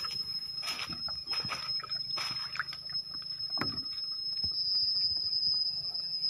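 Footsteps and rustling through leaf litter and undergrowth, with a few crunching steps about a second apart in the first half and quieter handling after, over a steady high-pitched whine.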